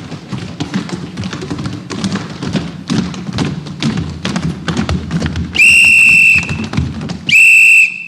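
Many quick footsteps, children tramping in on a hard floor, then two loud, steady blasts of a whistle, each under a second, near the end.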